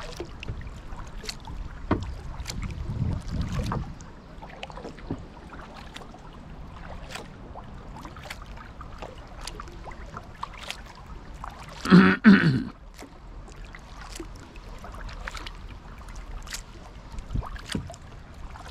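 Kayak drifting on calm water, with scattered light clicks and knocks from the hull and gear, and a low rumble in the first few seconds. About twelve seconds in, a brief, loud vocal sound.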